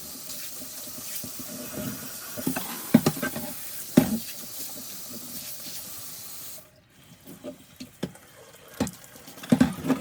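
Kitchen tap running as a glass fridge shelf is rinsed under it, with a few sharp knocks of the glass. The water cuts off suddenly about two-thirds of the way through, followed by scattered light knocks and bumps as the wet shelf is handled.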